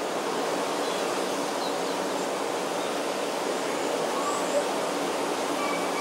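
Forest ambience: a steady, even rushing noise with a few faint, short bird calls over it, one about one and a half seconds in and a couple of notes near the end.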